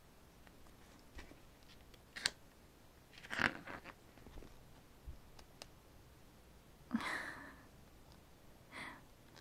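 Glossy photobook pages being turned by hand: a few short papery swishes and rustles, the longest about halfway through and again near the end.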